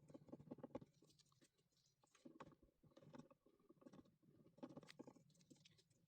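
Faint, irregular clicking and scratching in short clusters, over a low steady hum.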